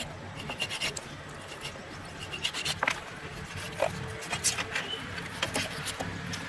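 A large knife cutting into a whole raw chicken on a steel plate, giving irregular scraping and light taps of the blade. Short, high-pitched chirps sound in the background now and then.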